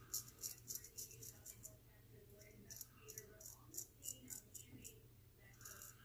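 Gold Monkey 777 straight razor scraping through lathered three-to-four-day stubble in a series of short, faint rasping strokes, a few a second and irregular.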